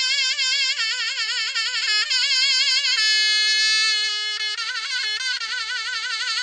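A single reedy-sounding melody instrument plays a slow, free-rhythm uzun hava line, its held notes shaken by a wide, even vibrato.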